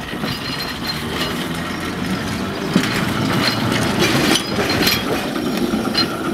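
Seaton Tramway's narrow-gauge electric tram no. 12 rolling slowly past at close range, its wheels rumbling and rattling on the rails, with sharp knocks and clinks now and then. The noise swells as the tram draws alongside.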